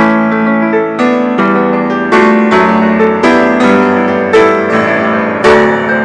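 Piano playing full chords, with a new chord struck roughly every second over sustained notes.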